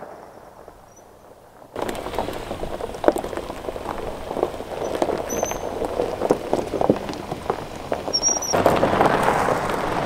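Tyres of a 2019 Ford Ranger pickup crunching and popping on loose gravel, starting abruptly about two seconds in. From about eight and a half seconds it gets louder as the truck rolls close past, with a low rumble under the gravel noise.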